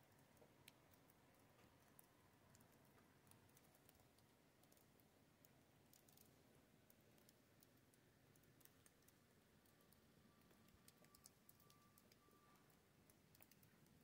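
Near silence, with faint scattered tiny clicks and a faint steady tone lasting a couple of seconds about ten seconds in.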